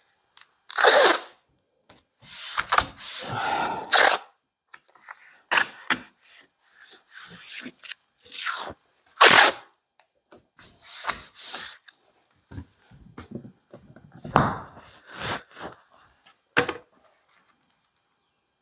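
Masking tape being pulled off the roll, torn and pressed on by hand to hold newly bonded glass in a van's rear door. It comes as a series of irregular tearing pulls, some short and sharp and some about a second long.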